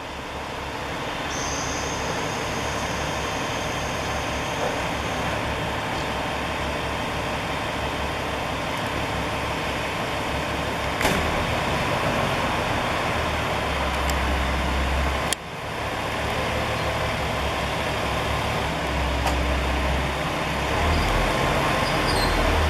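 Steady running noise of a vehicle with a low rumble, with a sharp click about eleven seconds in and a sudden brief drop in level a few seconds later.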